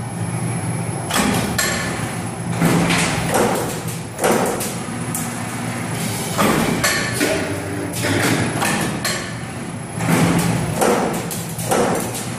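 CNC transformer lamination cut-to-length line running, with a steady low machine hum under repeated clunks from its shearing and punching strokes. The clunks come irregularly, about one a second.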